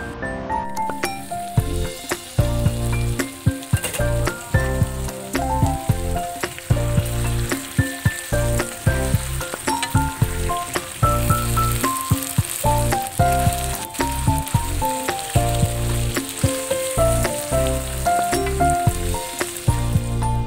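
Background music with a melody and a steady beat, over a steady sizzle of pinakbet vegetables and pork frying in a wok.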